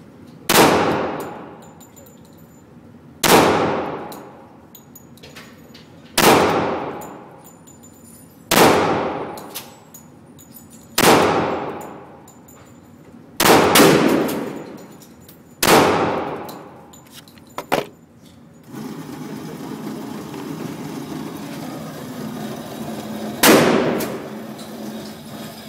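Glock 20 SF 10mm pistol fired in slow, deliberate single shots, about one every two and a half seconds, eight shots in all, each with a long echoing decay. A small click comes after the seventh shot, and a steady noise sets in shortly before the last shot, which comes near the end.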